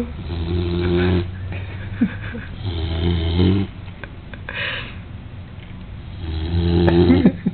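Snoring from a sleeper lying on its back: three long, low snores about three seconds apart, with breathy breaths between them.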